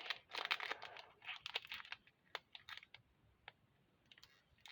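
Foil wrapper of a Pokémon booster pack crinkling and crackling as it is struggled open by hand: quick, irregular crackles, busiest in the first two seconds and then only scattered ones.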